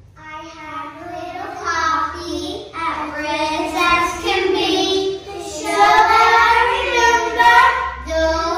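A class of kindergarten children singing a song together in unison.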